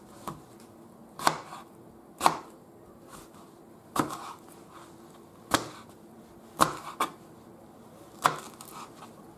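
Knife chopping a peach into small pieces on a plastic cutting board: sharp knocks of the blade on the board, about eight in all, at an uneven pace of roughly one a second.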